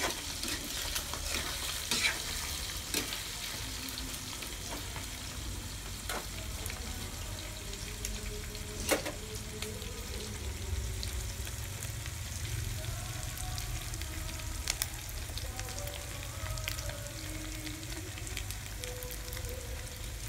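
Pork mesentery (chicharon bulaklak) frying in hot oil in a wok, sizzling steadily as it crisps. A metal spatula clicks and scrapes against the wok a few times, mostly in the first half.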